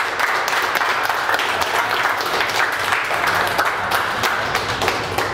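A group of hockey players applauding, many hands clapping at once in a steady round of applause.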